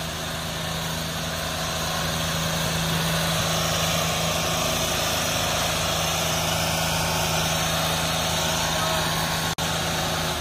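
The diesel engines of a John Deere and a Sonalika tractor running hard under load as they pull against each other in a tug-of-war. The engines make a steady drone over a broad rushing noise, slowly growing louder.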